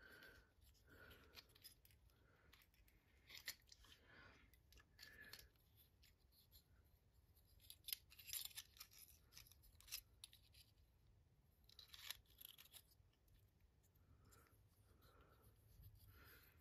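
Faint, scattered clicks and rustling scrapes of small fixture parts and wires being handled while a ceiling-fan light kit is wired up.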